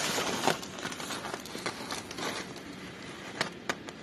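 Wind-driven heavy rain in a strong storm gust: a rushing hiss that swells at the start and then eases in uneven gusts, with two sharp taps against the house near the end.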